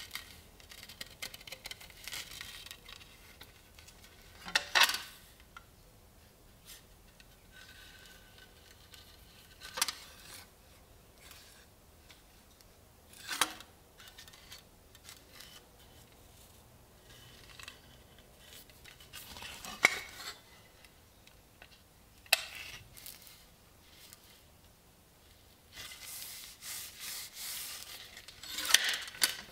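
A rusty antique tobacco cutter, steel blade on a wooden base, being handled and turned over: about half a dozen sharp knocks and clicks of metal and wood, with rustling and scraping between them.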